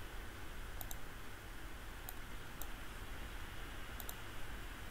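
Faint computer mouse clicks, about six, including two quick double clicks, over a steady background hiss.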